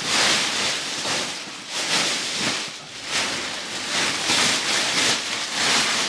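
Thin plastic mattress wrapping crinkling and rustling as it is pulled off the mattress by hand, in repeated swells with a short lull about three seconds in.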